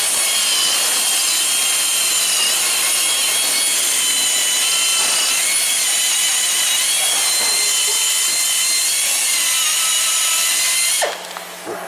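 Grinder with a wire cup brush running at high speed with a steady high whine as it scrubs rust off the wheel hub's mounting face. It cuts off suddenly about 11 seconds in.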